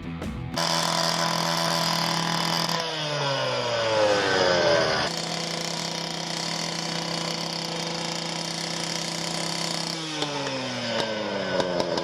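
Gas-powered saw cutting through an old metal gas pipe, its engine running fast with its pitch falling twice, and the sound jumping abruptly several times.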